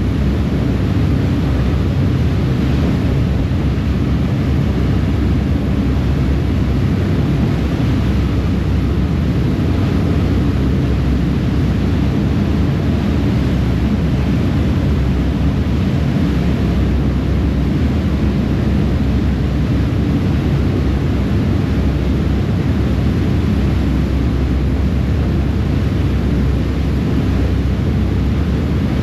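Ferry under way at speed: the steady drone of its engines mixed with the rush of the churning wake, one constant loud noise without breaks.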